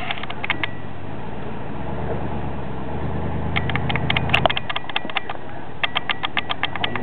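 Stock Toyota pickup's engine pulling under load as the truck crawls over a tank trap; the revs rise about two seconds in and fall away about halfway through. Runs of quick, sharp clicks come over it several times.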